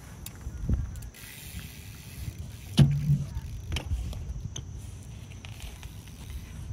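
Bicycle being ridden: tyres rolling, with scattered clicks and knocks and one loud, hard knock about three seconds in.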